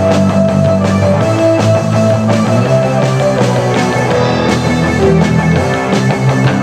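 Rock band playing with drums, bass, electric guitar and keyboards, held keyboard notes over a steady drum beat and bass line.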